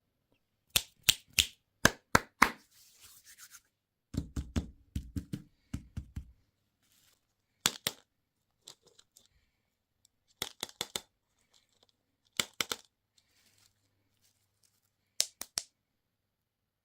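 Hands handling candy and toy packaging up close: clusters of sharp clicks and taps, with a run of dull low thuds about four to six seconds in.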